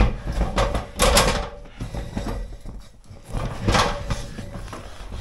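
Hard plastic equipment case knocking and scraping against an aluminium ladder and rock as it is handled down, a few rough scraping knocks with the longest about a second in.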